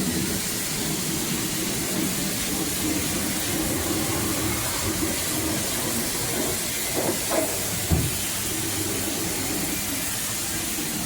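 High-pressure spray wand at a coin-operated wash bay, hissing steadily as water is sprayed over a refrigerator, with a short knock about eight seconds in.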